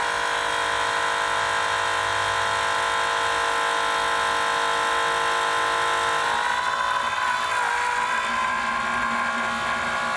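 12-volt electric transfer pump running steadily with a high whine, pushing transmission fluid through a hose into the transmission pan during the initial fill. Its pitch wavers and shifts slightly a little over halfway through.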